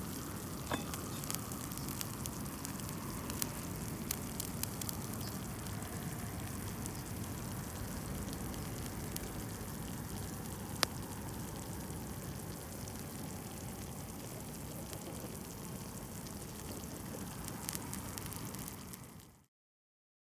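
Wood campfire burning: a steady hiss with scattered sharp crackles and pops, one louder pop about halfway through. It fades out quickly near the end.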